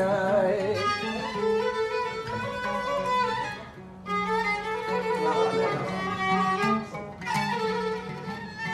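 Violin playing an instrumental melody in Arabic folk style, with an oud plucking alongside. The music dips briefly twice, about four seconds in and near seven seconds.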